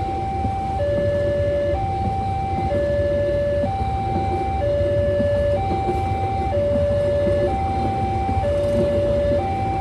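Railway level-crossing warning alarm sounding a steady two-tone electronic signal, alternating a higher and a lower tone about once a second, the warning that the gate is closing for a train. A steady low rumble runs underneath.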